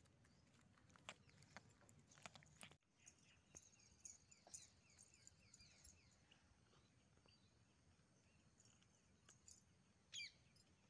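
Faint outdoor background: a few scattered clicks, then a bird's rapid run of short chirps, and a single brief, louder call about ten seconds in.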